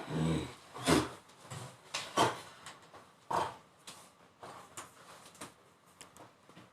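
A series of irregular knocks and clunks, about six in all, the loudest about one second and just over two seconds in.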